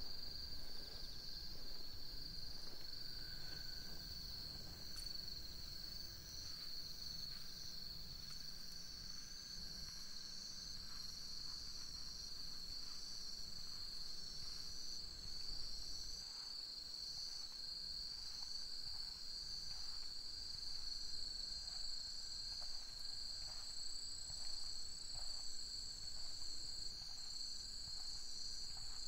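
A chorus of crickets and other insects trilling steadily: one continuous high trill, with a second, pulsing trill above it.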